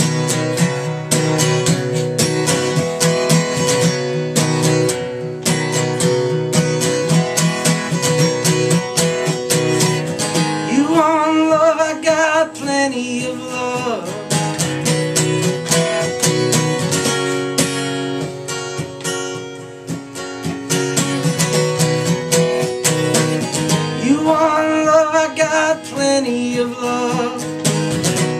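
Acoustic guitar strummed steadily through a song, with a man's singing voice coming in twice for a few seconds each.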